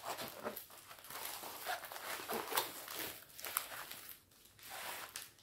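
Packaging being handled and unwrapped by hand, an irregular crinkling rustle with small sharp crackles that eases off briefly near the end.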